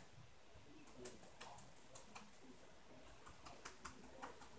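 Faint, irregularly spaced sharp clicks and ticks, about nine of them, over quiet room tone.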